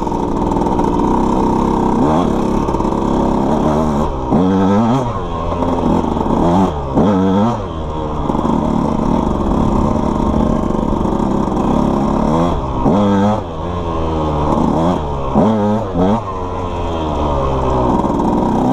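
KTM two-stroke dirt bike engine pulling along a dirt trail, its revs rising and falling in repeated swells as the throttle is opened and rolled off.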